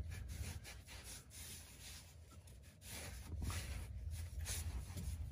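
Faint rubbing and small scraping clicks as fingers turn a loosened oil drain plug out of the steel oil pan by hand, over a low steady hum; the handling gets a little louder about three seconds in.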